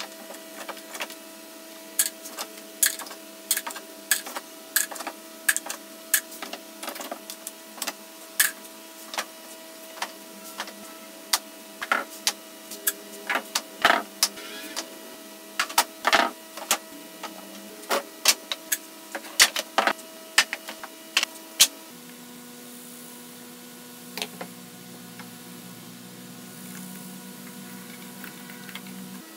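Irregular sharp knocks, about one a second, from a claw hammer tapping old nails out of pallet boards and the loose boards clattering as they are handled, over a steady mechanical hum. The knocks stop about 22 seconds in, leaving only the hum.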